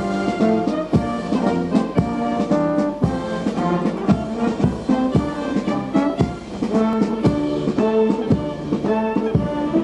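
Brass band playing a march, with trombones and trumpets over a steady drum beat.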